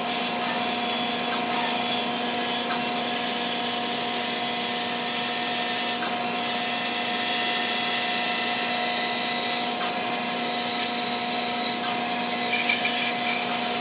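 Bandsaw running with a quarter-inch blade that is not its sharpest, cutting along an epoxy-laminated wooden longbow limb. A steady motor hum runs under the hiss of the blade in the wood, which swells about three seconds in and breaks off briefly a few times as the piece is fed.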